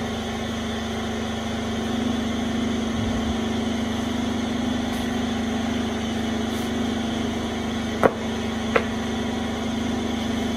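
Schön 6000 bridge-type beam cutting press standing ready, its hydraulic pump motor running with a steady hum. Two sharp knocks come a little under a second apart near the end, as wooden boards are laid onto the cutting table.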